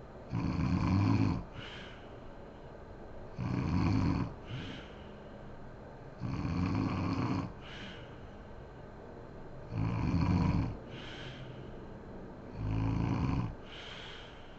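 A sleeping woman snoring: five loud snores, about one every three seconds, each followed by a short, softer breath.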